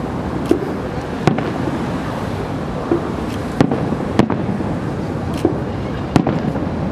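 Aerial firework shells bursting: about six sharp bangs at uneven intervals, over a steady background noise.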